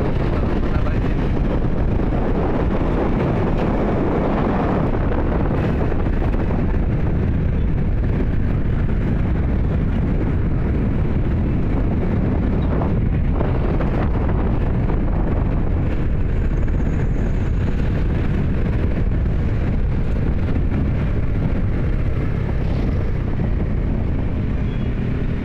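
Steady wind rush on the microphone and road noise from a motorcycle riding along a wet street.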